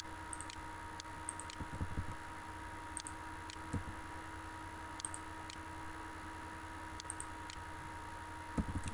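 Computer mouse clicks: a few short clicks, often in pairs, a second or two apart, over a steady electrical hum.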